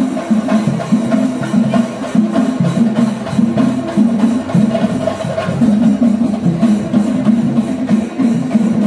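Percussion-led music: a fast, even drum rhythm with a steady pitched line running over it.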